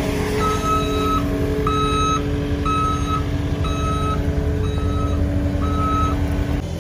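Backup alarm of a machine in reverse, six steady beeps of one pitch about a second apart, over a steadily running engine.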